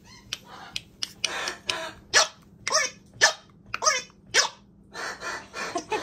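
Macaws squawking: a run of short, loud calls, roughly one every half second to second, several sliding up and down in pitch.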